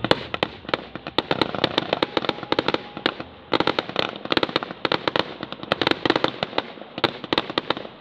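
Fireworks going off in quick succession: a dense run of sharp bangs and crackling pops, several a second without a break.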